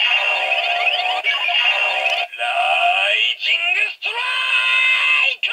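Electronic sound effects from a pirate-ship-themed Super Sentai toy gun's built-in speaker: sweeping, warbling synthesized tones in several bursts with short breaks between them, tinny and without bass.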